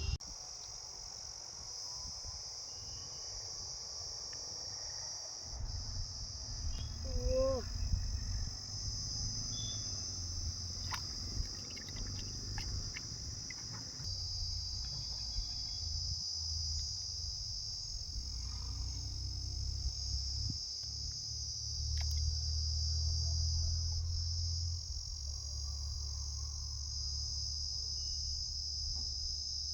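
Steady high-pitched chorus of insects trilling without a break, over a low rumble that comes and goes.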